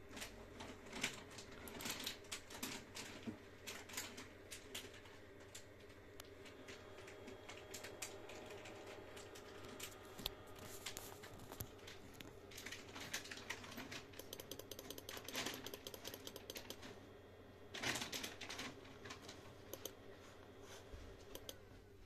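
A network video recorder's case fan running with a steady low whir, over many irregular light clicks. The fan is being left to spin down after its case fan mode was switched to Auto.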